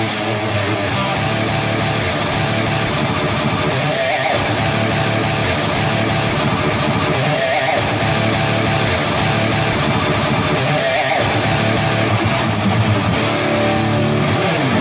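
Background rock music led by electric guitar, with a guitar phrase repeating about every three and a half seconds.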